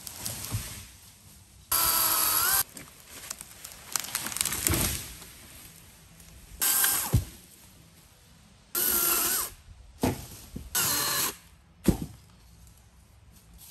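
Cordless electric chainsaw cutting saplings in four short spells of a high whine that start and stop abruptly. In between come cracking and crashing of a small tree coming down and a few sharp knocks.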